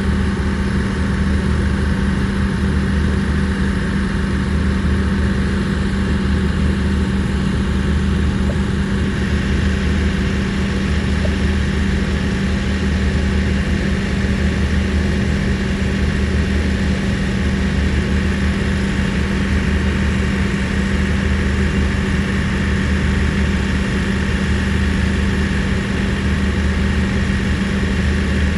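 An engine idling steadily: an even low hum that holds the same speed throughout.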